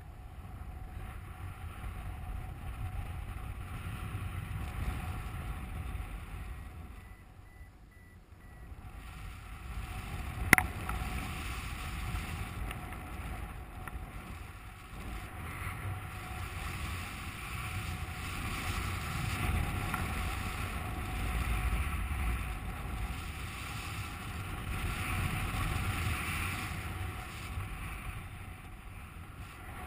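Wind rushing over the microphone of a paraglider pilot in flight: a low buffeting rumble that swells and eases. There is one sharp click about ten and a half seconds in.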